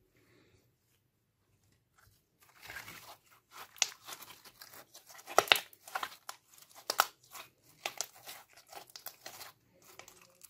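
Hands squeezing and kneading slime: wet crackling and squishing with many sharp clicking pops, a few of them much louder. It starts about two seconds in and dies away near the end.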